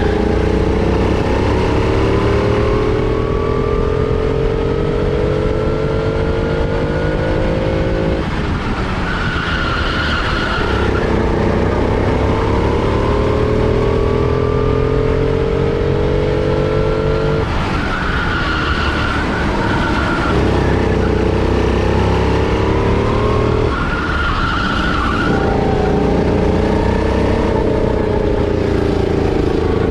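Four-stroke kart engine heard from on board, pulling hard with its pitch climbing steadily along each straight, then falling away sharply each time the throttle is lifted for a corner, four times. Short high squeals from the tyres come in the corners.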